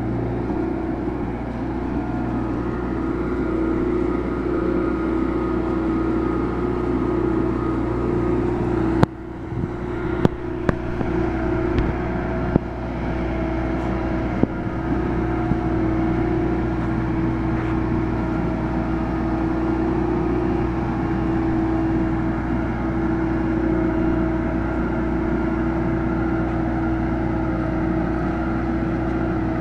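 Marine Travelift boat hoist running as it rolls slowly under a load: a steady engine drone with a held whine. A few sharp knocks come between about nine and fifteen seconds in.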